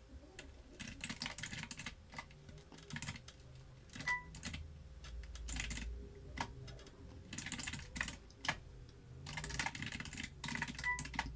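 Typing on a computer keyboard: several short bursts of key clicks with pauses between them.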